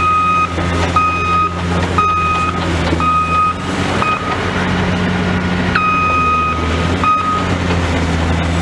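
A heavy machine's reversing/travel alarm beeping about once a second, then one longer beep and a short one before it stops, over a diesel engine running steadily.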